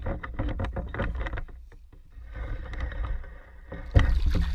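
Rustling, clicking handling noise while a largemouth bass is held over the water, then a sudden loud splashing about four seconds in as the fish is let go into the shallow pond edge.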